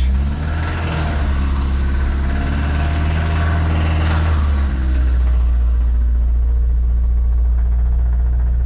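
Mazda B2000 pickup's four-cylinder engine running as the truck is pulled out, its note changing for the first few seconds and then settling to a steady idle. The owner suspects a rod knock in this engine.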